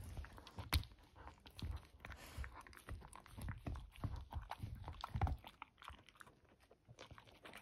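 Border collie gnawing and crunching a hard chew treat: irregular bites and crunches with low thuds as the jaws work. The chewing thins out over the last two seconds.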